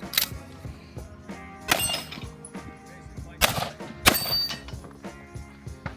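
Four gunshots fired at steel targets, spaced a second or two apart, with a short metallic ring from the steel after some of the hits.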